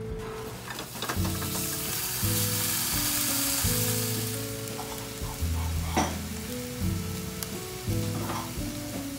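Thin slices of beef sizzling in a hot frying pan, the hiss starting about a second in, with a few light taps against the pan.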